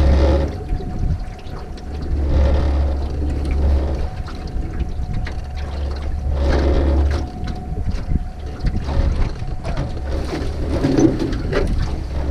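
Fishing boat under way at trolling speed: a steady motor hum with gusts of wind buffeting the microphone, swelling and easing every few seconds.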